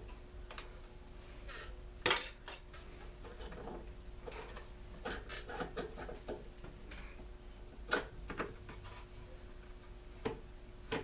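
Hand tools and small metal and plastic parts clinking and clattering as a Stihl BG 56 C leaf blower is taken apart by hand, in scattered irregular clicks with the sharpest clack about two seconds in.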